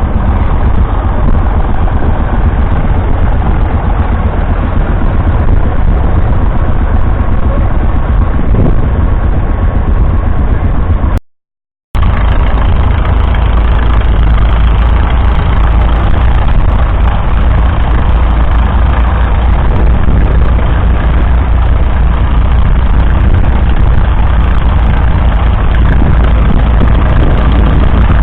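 Vintage tractor engine running steadily with a heavy low rumble. The sound drops out completely for under a second about eleven seconds in, then the engine rumble resumes.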